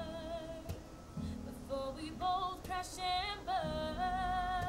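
Background pop music with a female singing voice, held notes over a steady low accompaniment.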